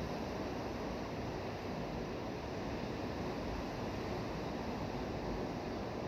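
Ocean surf: small waves breaking and washing in over a shallow rocky shore, a steady rushing wash with no single crash standing out.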